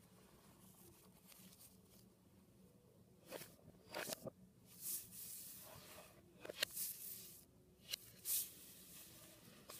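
Sheets of paper rustling and sliding on a wooden table in a string of short brushing sounds, beginning about three seconds in.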